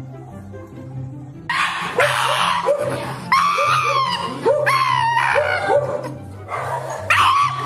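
Shiba Inu wailing and screaming in a run of loud, high, wavering cries, held by vet staff for an injection, over steady background music. The cries start about a second and a half in and come again near the end.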